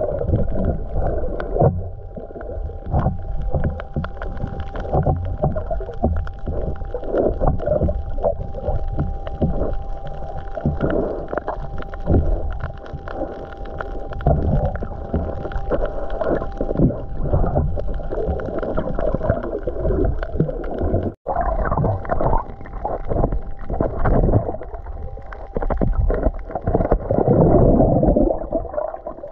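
Muffled underwater gurgling and sloshing of water, irregular and dense, with a faint steady tone running through it; the sound drops out for a moment about two-thirds of the way through, then carries on.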